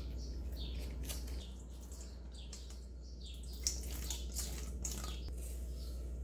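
Water dripping and trickling into a stainless steel mixing bowl as it drains out of thawed frozen soft tofu. It comes as a run of short, irregular drips and splashes.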